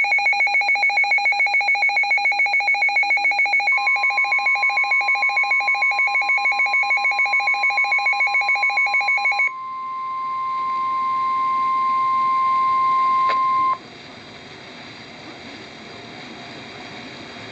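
Emergency alert tones for a severe thunderstorm warning. A rapidly pulsing two-tone beep sounds for about nine and a half seconds. About four seconds in, a steady single-pitched alert tone of the kind NOAA Weather Radio uses joins it, holds for about ten seconds and then cuts off, leaving a faint hiss.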